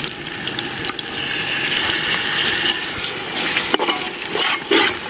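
Spiced onion-tomato masala sizzling in a large metal pot as yogurt is poured in, a steady hiss. In the second half, a metal ladle scrapes and knocks against the pot several times.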